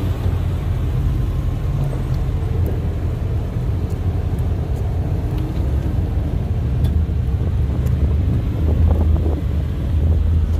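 A fourth-generation Mitsubishi Eclipse coupe's engine running at low speed as the car maneuvers slowly, with a steady low rumble that grows a little louder near the end.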